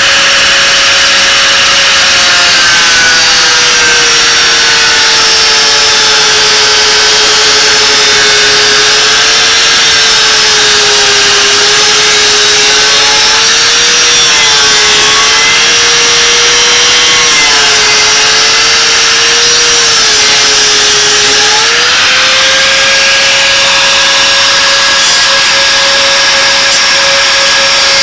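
Angle grinder with a cut-off wheel cutting metal. Its steady tone drops and wavers while the wheel is pressed into the cut, then rises back to a steady free-spinning pitch about 22 seconds in.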